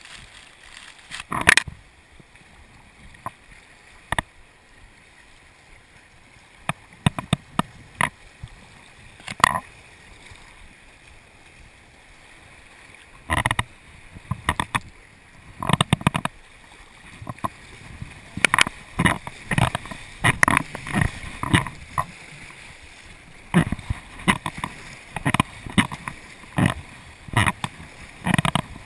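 Kayak running whitewater rapids: rushing river water with irregular splashes from paddle strokes and waves slapping the bow. The splashes are sparse at first and come thick and fast from about halfway through.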